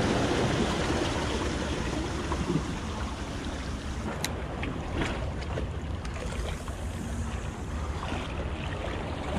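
Ocean waves washing against and over jetty rocks, a steady rushing wash that is loudest at the start and eases off after a couple of seconds, with a few faint clicks.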